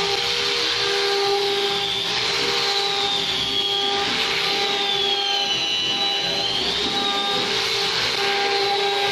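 Handheld angle grinder with a sanding disc running against wood: a steady high motor whine over the hiss of the disc, its pitch sagging and recovering about five to seven seconds in as the disc is pressed into the wood.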